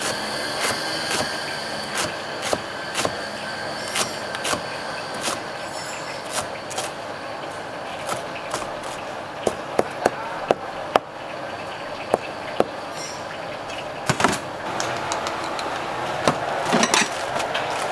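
Cleaver chopping spring onions on a plastic cutting board: sharp, irregular knocks about two a second over a steady background noise, with a few louder knocks and some clatter near the end.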